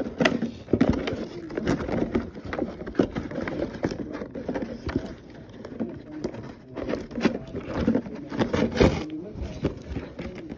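Cardboard toy packaging being handled and pulled apart, with repeated crackling, scraping and tearing of the card and tabs. A television voice talks faintly underneath.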